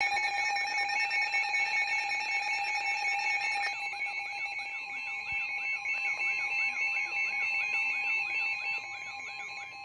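Several weather radio and broadcast emergency alert alarms sounding together for a Flash Flood Warning, with steady tones and rapid beeping. A little under four seconds in, one tone drops out and a warbling, siren-like tone joins in.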